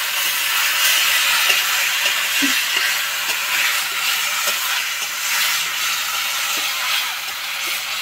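Chopped taro stems sizzling in hot oil and fried spice paste in a metal kadai, a steady hiss, with a few light ticks of a metal spatula against the pan as they are stirred.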